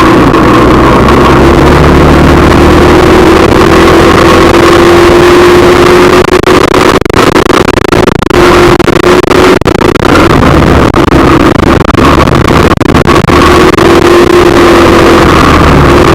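Car driving, with engine and road noise running steadily under a hum that drifts slowly up and down in pitch; the recording is very loud and overloaded.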